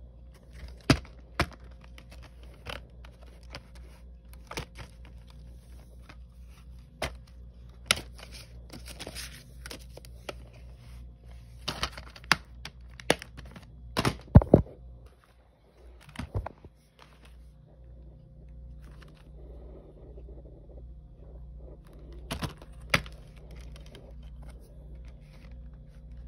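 Box-set packaging being handled and unwrapped: scattered sharp clicks and knocks with some crinkling and tearing of plastic, the loudest run of knocks around the middle, over a steady low hum.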